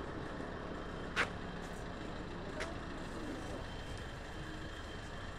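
Steady road and vehicle noise from riding along a street, with a sharp click about a second in and a fainter click a second and a half later.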